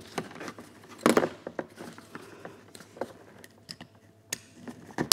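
A strap being lengthened and pulled tight around a plastic battery box: scattered rustling and clicking of strap and hard plastic, with a sharp click about a second in and another a little after four seconds.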